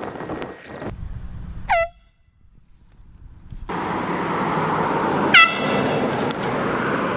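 Two short toots of a handheld air horn about four seconds apart, each a brief blast whose pitch drops slightly. The second toot is louder, and steady outdoor background noise sets in before it.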